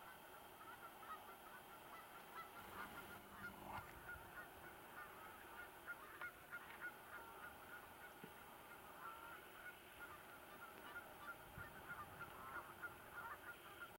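Faint, distant birds calling: many short calls repeated throughout, over a steady background hiss.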